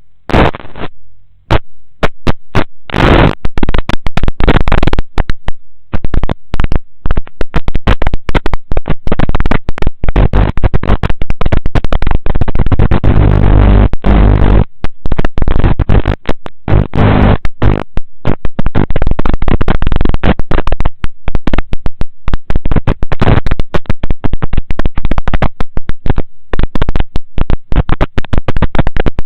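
Very loud, distorted crackling noise, dense and irregular, with a low pitched buzz joining in about twelve to fifteen seconds in.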